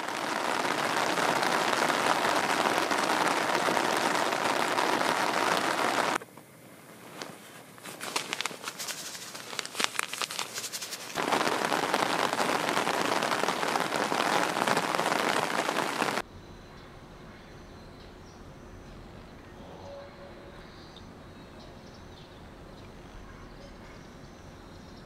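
Rain falling steadily, easing about six seconds in to scattered separate drips, then pouring again; about sixteen seconds in it cuts off suddenly to a faint low background hum.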